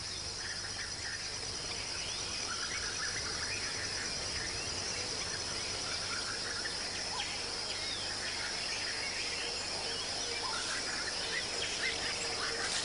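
Forest ambience: a steady, high-pitched insect chorus, with scattered short bird-like chirps over it.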